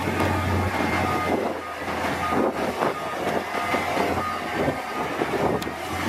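Komatsu D53P crawler bulldozer at work: its diesel engine running under irregular clanking of the steel tracks, with short, repeated squeaks. The deep engine hum drops away in the first second.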